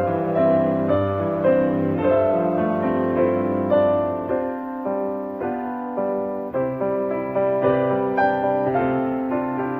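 Background piano music, a melody of struck notes that ring and fade.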